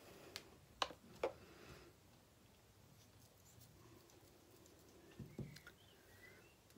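Near silence with a few small clicks and taps from handling a paintbrush and face-paint palette: three within the first second and a half and a couple more about five seconds in.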